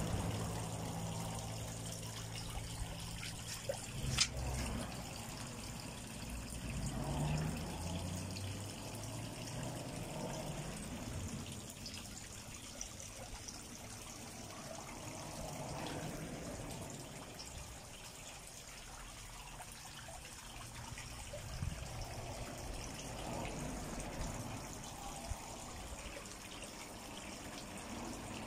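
Water trickling and splashing steadily in a small rocky fish pond, swelling and easing a little, with a sharp click about four seconds in.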